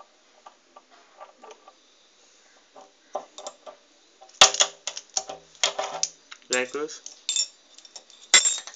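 Steel spanners clinking against each other and against a bolt's nut as a spanner is fitted and handled. Light clinks give way to louder metallic clattering from about halfway, with sharp strikes about four and a half seconds in and near the end.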